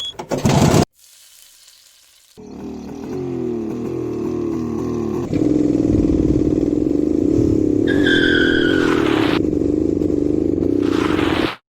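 Motorcycle engine running in an edited sound-design track. It starts after a short noisy burst and a brief quiet gap, builds up, then runs loud and steady, with a short high two-tone sound about eight seconds in. It cuts off abruptly near the end.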